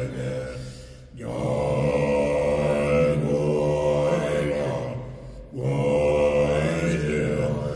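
Chanted vocal music: long, held sung phrases with a steady drone underneath. The phrases break off briefly about a second in and again about five and a half seconds in.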